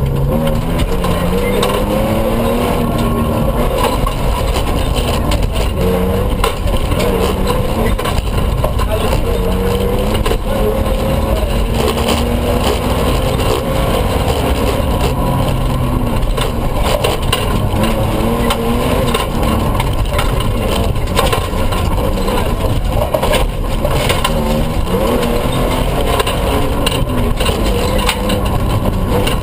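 Toyota pickup rally truck's engine under hard acceleration, heard from inside the cab: the revs climb and drop again and again as it shifts through the gears. Throughout there is a constant low rumble with frequent short rattles and knocks from the truck running over a rough dirt track.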